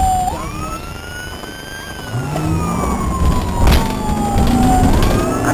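Patrol car's siren on a slow wail, gliding down, sweeping back up and falling again, over engine and tyre noise. The engine revs up about two seconds in, and a sharp knock about two-thirds of the way through is the loudest sound.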